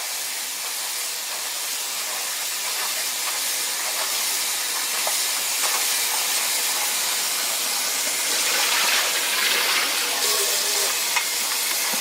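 Vegetable pakoras deep-frying in hot oil: a steady, busy sizzle with scattered small pops.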